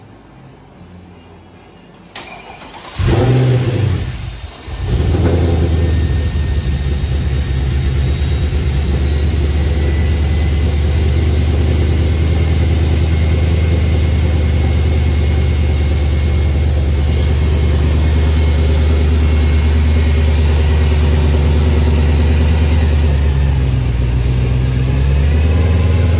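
Mercedes-AMG C63's M156 V8, newly fitted with a Weistec supercharger, starting for the first time: it cranks, fires about three seconds in, falters for a moment, then catches and settles into a steady idle.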